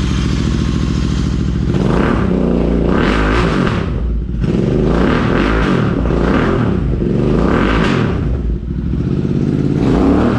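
Royal Enfield Interceptor 650's parallel-twin engine breathing through an S&S exhaust system, idling and then revved about four times, each rev rising in pitch and falling back to idle.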